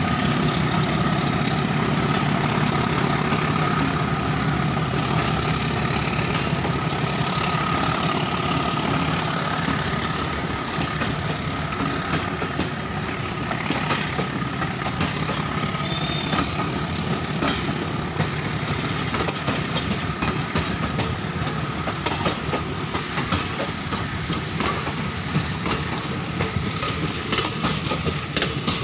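Passenger coaches rolling past behind an ALCO diesel locomotive: the locomotive's engine rumbles steadily at first and fades after about ten seconds, leaving the coach wheels clicking over the rail joints in an irregular clatter.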